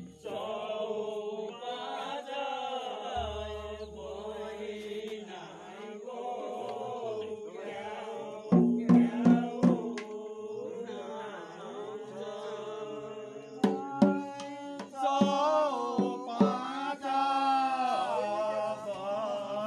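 Men's voices chanting a song together in long, wavering phrases, with a few loud thumps about halfway through.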